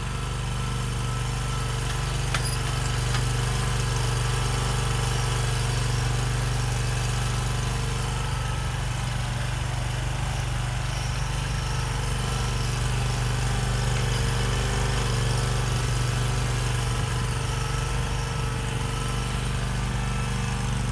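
Kawasaki FS481V V-twin engine of an Exmark 36-inch Turf Tracer hydro walk-behind mower running steadily at an even speed while the mower is steered and turned by hand.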